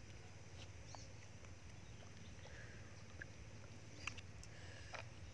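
A few faint, sharp clicks of cooked snail shells knocking against each other and the pan as they are picked out and prised open with a bamboo skewer, over a steady low hum.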